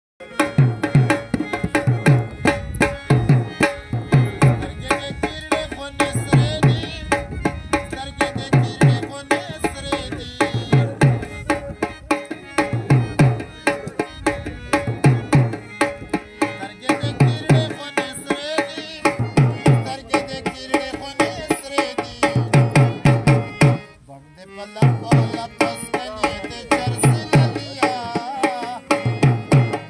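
Dholak barrel drum played by hand in a fast, steady folk rhythm, accompanied by the sustained reedy notes of a harmonium. The playing drops away briefly late on, then picks up again.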